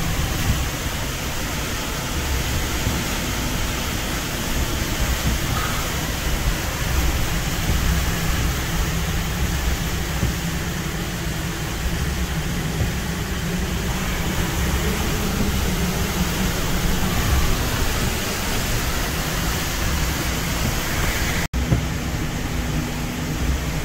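Hurricane Helene's eyewall wind and driving rain buffeting a truck, heard from inside the cab: a loud, steady rushing noise with a heavy low rumble, strong enough that the truck feels close to being blown over.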